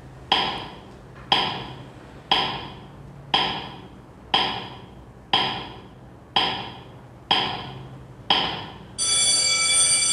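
Countdown timer sound effect: a sharp wooden tick once a second, nine in all, then an alarm-clock ring starts about nine seconds in as the countdown reaches zero.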